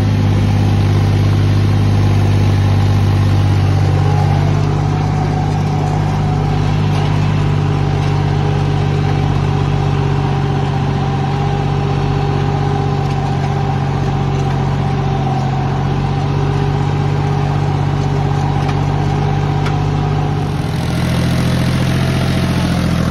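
John Deere 5050D tractor's three-cylinder diesel engine running steadily under load, pulling a disc harrow. Near the end the engine note changes.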